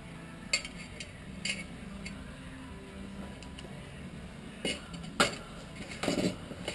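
Locking pliers (vice grips) being adjusted and handled against a steel rifle receiver: scattered sharp metallic clicks and clinks, the loudest about five seconds in, over a low steady hum.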